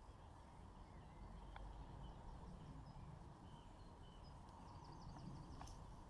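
Near silence: a faint low rumble with small birds chirping in the background, and a quick run of chirps about five seconds in.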